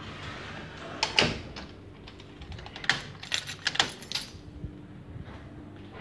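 Sharp clicks and knocks: one loud knock about a second in, then a quick run of clicks from about three to four seconds in, over a faint steady hum.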